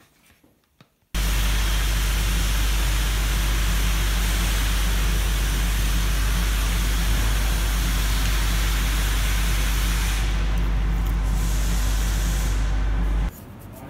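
A loud, steady rushing hiss over a deep, even hum. It starts abruptly about a second in and cuts off sharply near the end.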